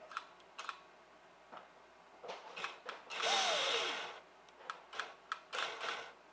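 An HO slot car's small electric motor whirs briefly about three seconds in, its pitch falling as it dies away after about a second, with a shorter burst near the end and scattered clicks and taps around them. Power cuts in and out from a trigger controller that has just been damaged in a fall.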